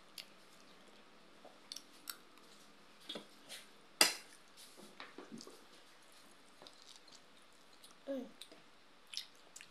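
Light clicks and scrapes of a metal fork and spoon against a plate while eating, with one sharper clink about four seconds in.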